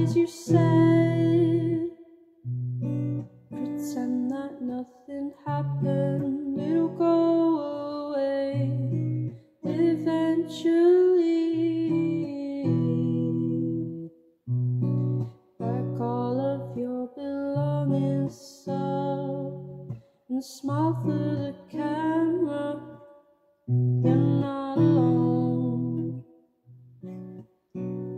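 Capoed acoustic guitar strummed in chordal phrases that break off briefly every few seconds, with a voice singing the song over it in places.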